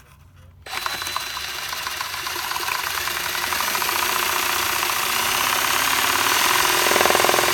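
Power drill starting up about a second in and driving a LEGO chainsaw's crankshaft and blade mechanism, a fast, dense clatter of plastic parts over the drill motor that grows a little louder.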